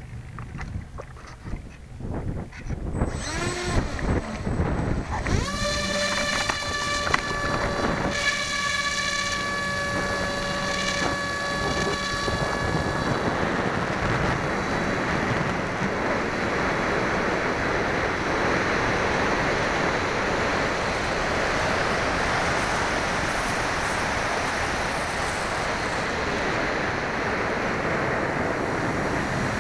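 A model floatplane's motor spools up with a rising whine about three seconds in and holds a steady high whine through the takeoff run off the water. From about thirteen seconds in, once airborne, steady wind rush on the onboard camera's microphone covers the motor.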